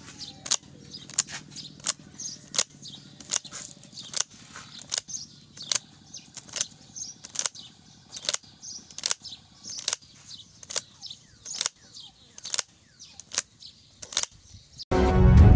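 Paper banknotes being counted by hand, a crisp flick of paper for each note, about one and a half a second. Loud music starts suddenly near the end.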